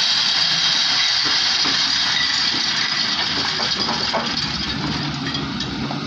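Volvo wheeled excavator's diesel engine running while the boom and bucket are worked, with a loud high hiss over it that slowly eases off toward the end, leaving the engine's low steady note.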